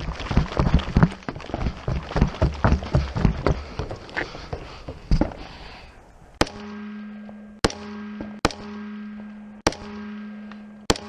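Carbine shots fired one at a time, roughly a second apart, starting about six seconds in, with a steady low hum between the shots. Before the shooting, a quick run of clattering knocks and thumps.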